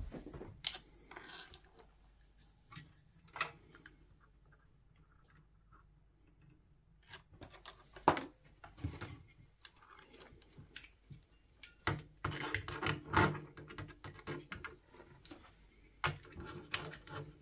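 Sparse handling clicks and scrapes, then a cluster of louder knocks and scrapes around twelve to thirteen seconds in as a Pentium 4 heatsink is set down onto the socket 478 retention frame over the Celeron.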